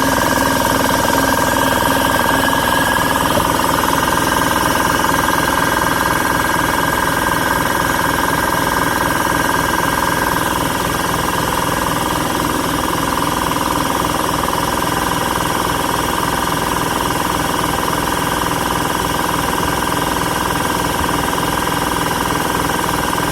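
Portable electric air compressor running steadily as it fills its tank: the motor hums and the pump chatters evenly. The level dips slightly about ten seconds in.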